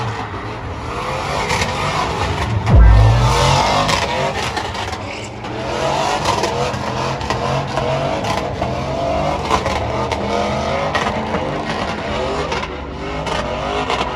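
Vehicles drifting: engines revving up and down hard while the tires squeal and slide. About three seconds in there is a heavy low thump, the loudest moment.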